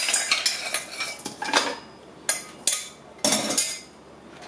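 Ice cubes dropped by hand into a blender jar: a string of irregular clinks and clatters, with a quick cluster near the start and single knocks spread through the rest.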